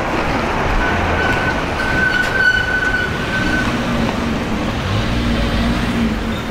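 City street traffic noise, with a steady high squeal lasting about two seconds starting about a second in.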